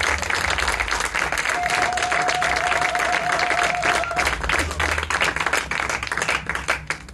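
Audience applauding, a dense patter of many hands clapping that thins to scattered separate claps near the end.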